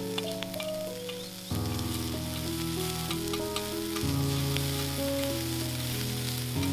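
Background music with slow chord changes, over food sizzling and crackling on a compact campfire grill.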